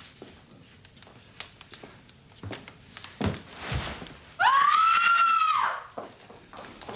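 A woman screams in fright: one high shriek of about a second and a half, starting about four and a half seconds in. It is preceded by a few soft knocks and a dull thud.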